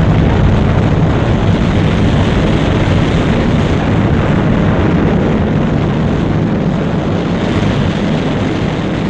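Sun Probe rocket engines firing on the launch pad just after ignition: a loud, steady rushing noise with a deep low end, easing slightly toward the end.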